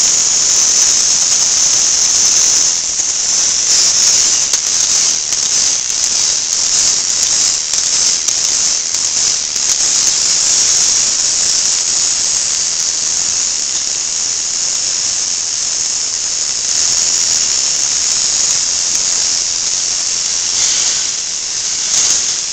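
K'nex roller coaster model running, its plastic cars rolling along the tube track with a steady, loud, high hiss.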